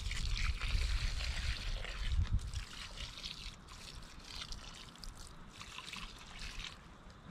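Water pouring from a plastic gallon jug onto soil and flowers in a raised bed, a steady splashing stream that is heavier for the first couple of seconds and then lighter. A low rumble sits under it in the first couple of seconds.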